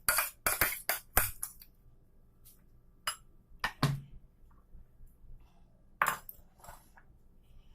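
Spoon scraping and clinking against a container and bowl as ground coriander chutney is moved into a bowl: a quick run of scrapes and clicks in the first second and a half, then scattered clinks and a dull knock near the middle.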